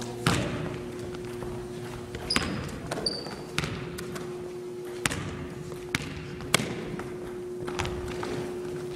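A basketball bouncing and striking in a large gym: about nine separate sharp impacts, each ringing on in the hall. Two short high sneaker squeaks come between two and three seconds in, over a steady low hum.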